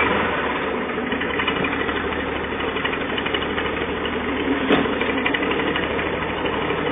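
IMT 542 tractor's diesel engine running steadily under load while pulling a mounted plow through soil, with one brief click about two thirds of the way through.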